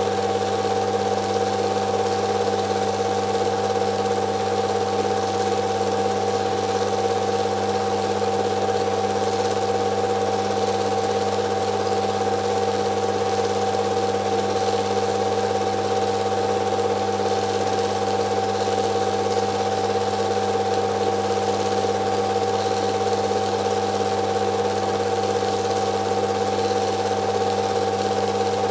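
Film projector running steadily: a constant motor hum and mechanical whir that does not change.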